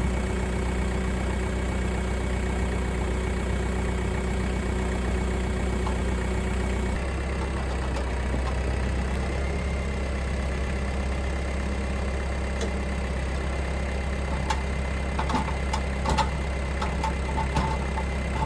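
Tractor engine running steadily, its note shifting about seven seconds in, with a few knocks and clanks in the last few seconds as the heavy log is set onto the sawmill.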